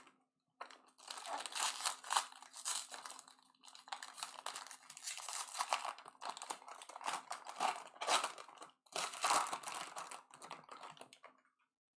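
Foil wrapper of a Bowman Draft jumbo baseball card pack crinkling and tearing as it is pulled open by hand. It goes on in a continuous crackle with a short pause near the end.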